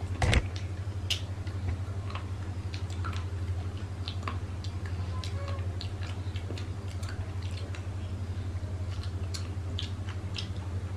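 Close-up eating sounds of rice and mutton curry eaten by hand: scattered short wet clicks and smacks of chewing, with a louder smack just after the start, over a steady low hum.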